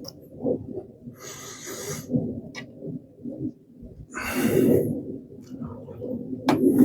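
Two heavy breaths of about a second each, one about a second in and one about four seconds in, over low rumbling handling noise, with a single light click in between.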